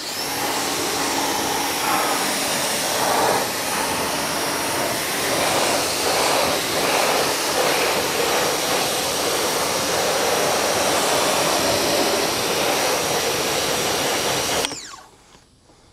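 Active VE52 pressure washer rinsing a car wheel: a steady hiss of high-pressure spray hitting the wheel and brake, which cuts off abruptly about a second before the end.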